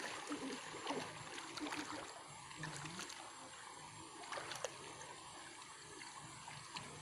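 Water sloshing and lapping as two people wade chest-deep in a muddy pond, with a few small splashes now and then.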